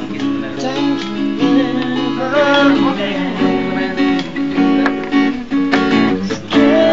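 Music with a strummed acoustic guitar, playing steadily.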